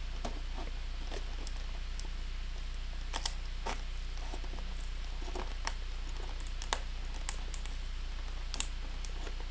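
Hands working at a cardboard collector's box's packaging with a small blade, trying to open it without damage: faint scattered scratches and small clicks, with a few sharper ticks, over a steady low hum.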